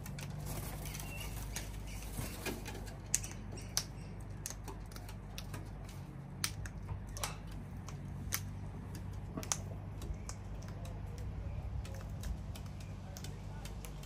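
Sulphur-crested cockatoos on a railing: irregular sharp clicks and taps of claws and beaks, with wing flaps as birds take off, over a low steady hum.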